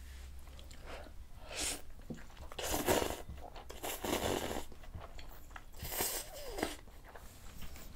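Glass noodles from a bowl of soup being slurped in several short sucking draws, with wet chewing between them.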